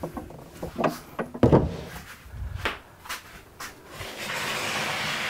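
Wooden knocks and clunks as the lid and lift-out tray of an olive ash tool chest are handled, the loudest a thud about a second and a half in. From about four seconds in, a steady scraping of wood sliding on wood.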